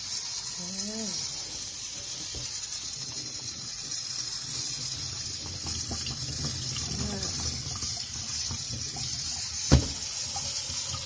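Kitchen tap running in a steady stream into a stainless steel sink, splashing through a plastic colander of mung bean sprouts as they are rinsed; the water stops at the very end. A sharp knock about three-quarters of a second before that is the loudest sound.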